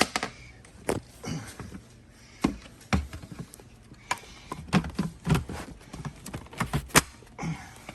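Irregular clicks and knocks, about fifteen of them over several seconds, from the Tineco Floor ONE S5 Steam floor cleaner being handled, in the pause between its voice prompt about the dirty water tank and the start of self-cleaning.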